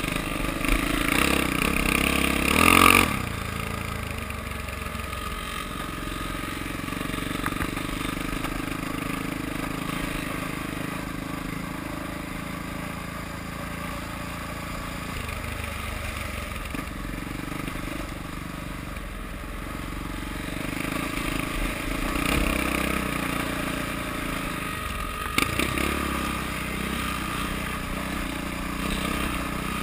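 Dirt bike engine running under way on a rough trail, rising louder under throttle in the first three seconds and again a little past twenty seconds in. One sharp knock comes about twenty-five seconds in.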